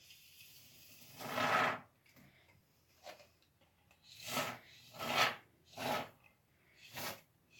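Can of expanding foam sprayed through its applicator tube in short rasping bursts, about five or six, the longest about a second in.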